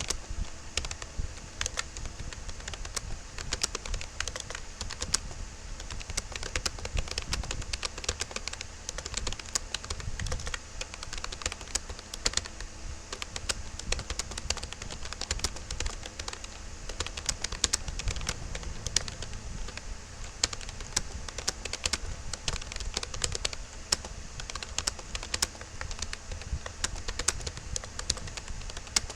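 Fast, continuous touch-typing on a Rapoo computer keyboard: a rapid, irregular stream of key clicks.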